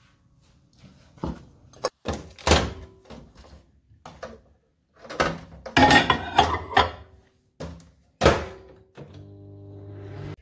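Knocks and clatter as a plate of frozen food is set into a countertop microwave, then the microwave door shuts with a loud thunk about eight seconds in. The microwave then starts heating, running with a steady hum.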